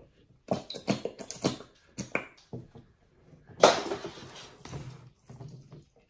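Plastic squeeze bottles being handled and squeezed over glass mixing bowls: several short clicks and squirts, then a louder sputtering rush about three and a half seconds in.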